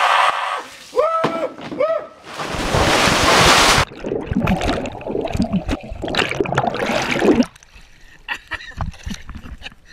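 Swimming-pool water splashing and rushing over a head-mounted action camera as a man thrashes in the water, with two short vocal cries about a second in and a loud rush of water about two and a half seconds in. Quieter sloshing follows near the end.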